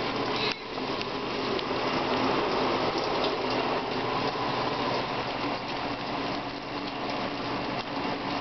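Shower spray running steadily into a bathtub, an even rush of falling water.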